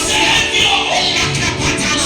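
Loud worship music playing continuously, with no pauses.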